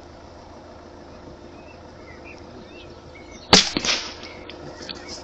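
.22LR subsonic rifle shot, a single sharp crack about three and a half seconds in, followed about a third of a second later by a second, weaker smack, the bullet striking the rabbit at about 100 yards.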